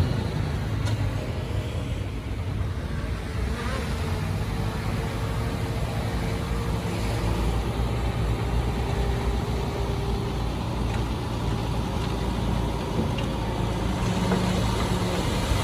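Diesel engine of heavy earthmoving machinery, a dump truck or bulldozer, running steadily at low revs.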